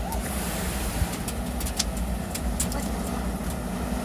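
An engine running steadily at idle, a low rumble, with scattered light clicks over it.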